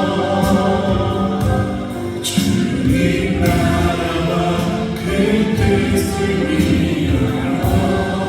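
Music with a choir singing, in a gospel style, over a steady beat.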